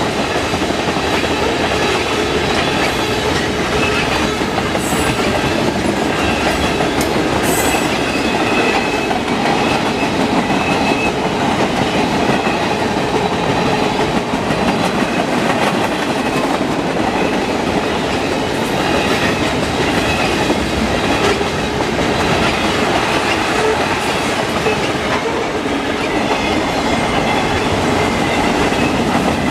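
Freight train cars rolling past on steel wheels, a steady loud rumble with the clicking of wheels over rail joints and a faint high wheel squeal now and then.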